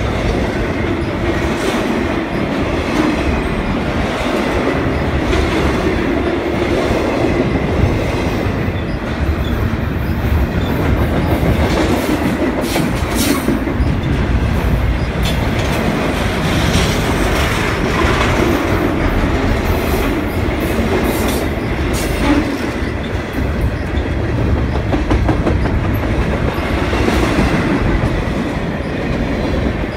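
CN freight train of double-stack container well cars rolling past close by: a steady, loud rumble of steel wheels on rail, with irregular clicks and clanks from the wheels and car couplings.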